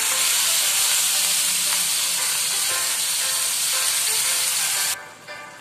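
Marinated beef cubes sizzling in hot oil in a wok while being stirred with a spatula. The sizzle cuts off suddenly near the end.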